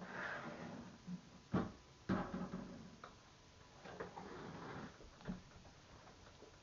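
Painting supplies being handled on a work table: several light knocks and clicks, the sharpest about one and a half and two seconds in, with rustling in between.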